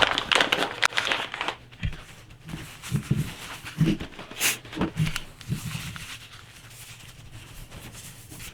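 A cloth rag being rubbed over the outside of a 1911 pistol's frame and grips to wipe it down, in uneven scraping strokes that thin out after about six seconds.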